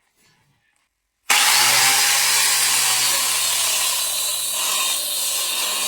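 Angle grinder converted to a mini electric chainsaw, starting abruptly about a second in and running at full speed. It gives a steady, loud rasping noise with a high whine over a low hum. The chain runs very fast.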